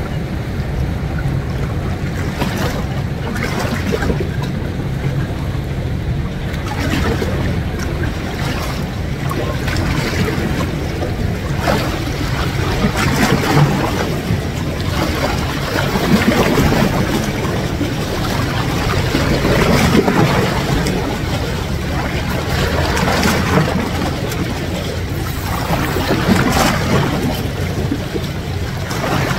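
Seawater sloshing and lapping against breakwater rocks, with wind buffeting the microphone and a steady low drone underneath.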